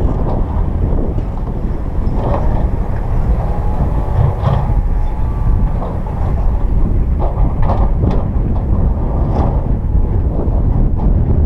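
Heavy earthmoving machinery: a diesel engine running loud and low under load, with scattered metallic clanks and a brief squeal of steel parts working rock.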